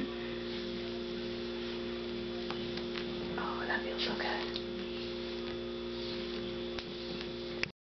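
Steady electrical hum, with faint rustling of a grooming brush drawn through a long-haired cat's fur about halfway through and a few light clicks.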